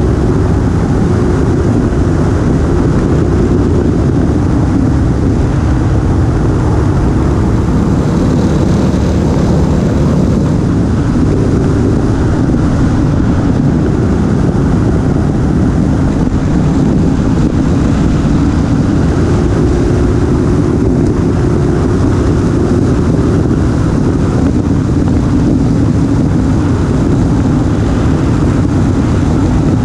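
Motorcycle engine running at a steady cruising speed, heard under a constant rush of wind and road noise on the bike-mounted camera's microphone.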